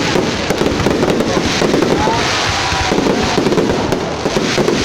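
Fireworks going off: a dense, continuous rattle of rapid bangs and crackles.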